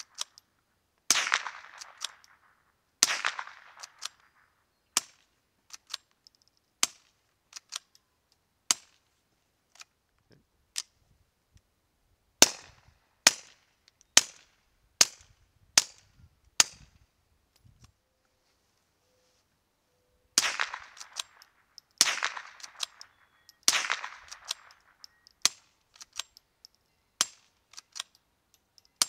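Suppressed .22 rimfire gunshots, from a rifle fitted with a SilencerCo Warlock and then a Spectre, and from a Ruger Mark III pistol with the Warlock. Three louder shots with a long echoing tail come at the start and again about two-thirds through, each followed by quieter, shorter shots with small action clicks. In the middle come six pistol shots at about one a second.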